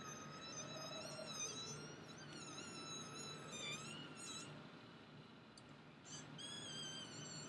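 High-pitched squealing sound effects with a wavering, gliding pitch, made by voice. The squeal runs on with brief dips and breaks about four and six seconds in.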